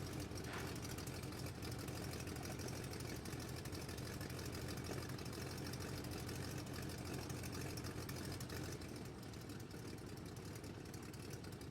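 Airplane engine running steadily, getting slightly quieter near the end.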